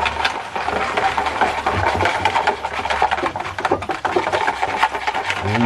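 Whisk beating an egg mixture in a bowl, a fast, steady run of quick clicks.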